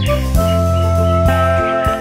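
Instrumental background music: held melody notes shifting in pitch over a steady bass, with a few light drum hits.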